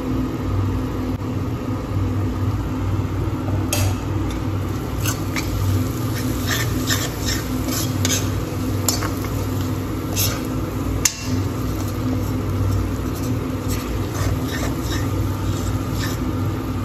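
A steel spoon stirring a thick masala in a black kadai: repeated short clicks and scrapes of metal on the pan, frequent from about four seconds in, over a steady low hum.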